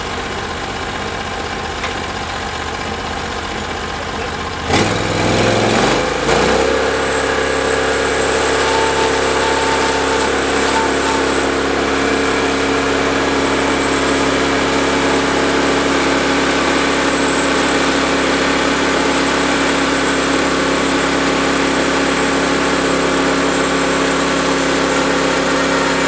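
Portable band sawmill's gas engine running steadily; about five seconds in it speeds up, wavers briefly and settles into a steady higher run as the sawhead travels along the timber.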